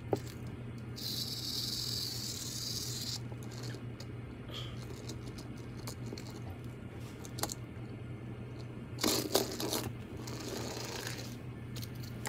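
Close handling noises as a small toy is fiddled with: scraping, rustling and light clicks, with a hissy stretch about a second in and a louder burst of scraping near the end, over a faint steady hum.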